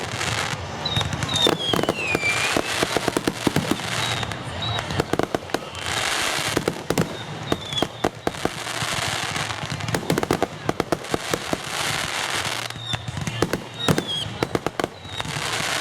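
Fireworks display: rapid bangs and dense crackling, in waves, with short high whistles that fall in pitch.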